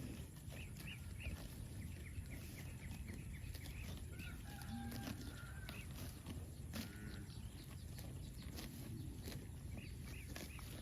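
Outdoor ambience with cattle: runs of short, high-pitched bird chirps near the start and again near the end, a brief low animal call about halfway through, and scattered clicks over a steady low rumble.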